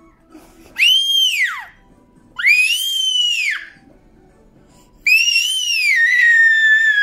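A toddler's high-pitched squeals of delight, three in a row: two short ones that rise and fall, then a longer one that holds its pitch before sliding down near the end.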